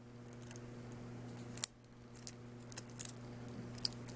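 Light metallic clicks and clinks of a metal watch bracelet and a pin punch as the punch pushes the spring bar down to free the clasp, with one sharper click about one and a half seconds in. A faint steady hum runs underneath.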